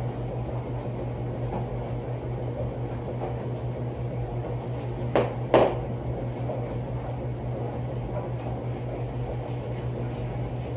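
Steady low machine hum, like a fan or air conditioner running, with two short sharp noises about half a second apart roughly five seconds in.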